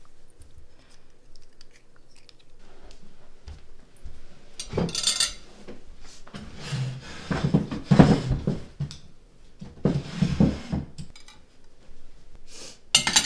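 Plates and cutlery clinking as dishes are handled, in several separate bursts, the loudest around the middle.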